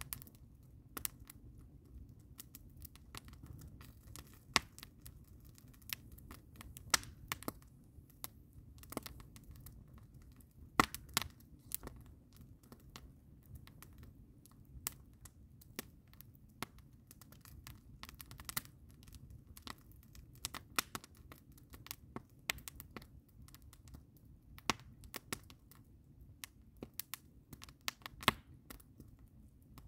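Wood campfire burning, crackling and popping irregularly, with a few sharp, loud pops, over a low steady rumble.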